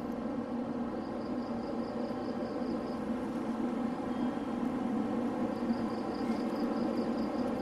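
Steady machine hum of trains standing at the station platform. Twice an insect chirps in fast, even pulses, each spell lasting about two seconds.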